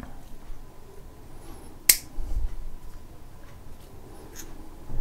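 Fishing tackle being handled by hand: faint small clicks and one sharp click about two seconds in.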